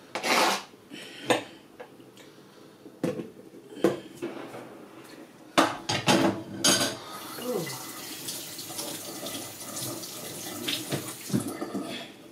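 Kitchen clatter as chopped pepper is tapped off a plastic cutting board into a steel soup pot and a glass lid goes on: scattered sharp knocks and taps, the loudest cluster about six seconds in. From about seven seconds on a steady watery hiss runs with a few faint clinks.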